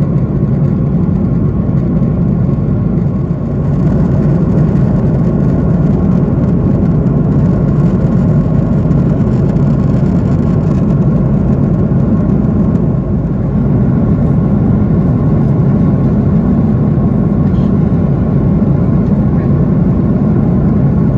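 Steady low drone of a jet airliner cabin at cruise: engine and airflow noise heard from inside the cabin.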